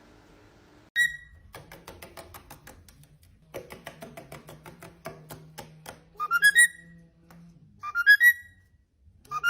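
Music: a quick clicking beat, then three short rising whistle-like phrases.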